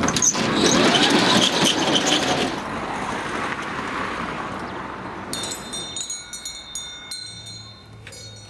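A road vehicle passing by, its noise swelling quickly and then slowly fading away. Bright ringing tones come in about two-thirds of the way through, with a low hum near the end.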